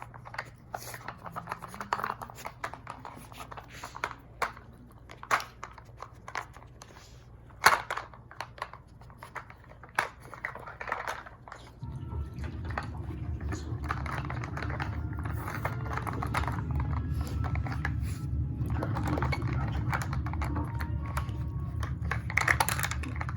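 Dogs working a plastic treat puzzle toy: scattered clicks and knocks as the lids are nosed and pushed about. About halfway through a steady low hum comes on and carries on.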